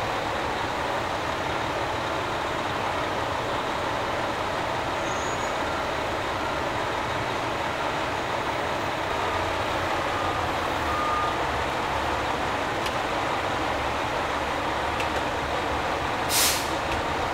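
A heavy vehicle's engine running steadily, with a brief hiss of air about a second before the end.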